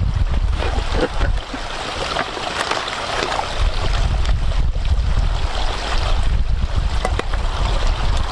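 Wind blowing across the microphone in a snowstorm, a steady rumbling rush with scattered light ticks and rustles.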